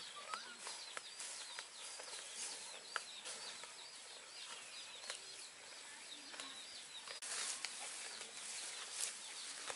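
Faint outdoor background of small birds chirping over and over in short high notes, with scattered light clicks. About seven seconds in there is a brief burst of rustling noise.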